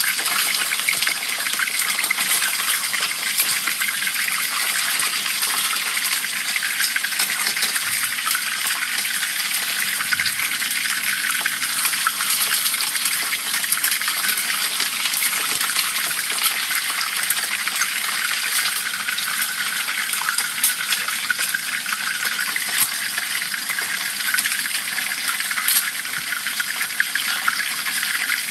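Hot oil sizzling and crackling steadily around whole dorado fish deep-frying in a pan.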